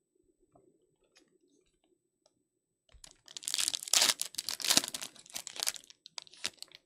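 A foil trading-card pack wrapper being torn open and crumpled: a loud crinkling rustle that starts about three seconds in and lasts around three seconds, after a few faint clicks of cards being handled.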